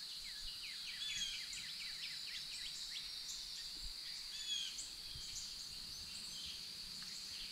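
Woodland ambience: a steady high-pitched insect drone, with birds chirping in quick runs of short calls.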